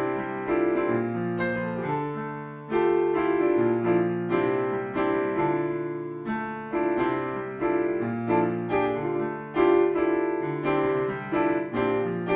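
Solo piano playing a slow blues piece: chords struck and left to fade, a new chord every second or so.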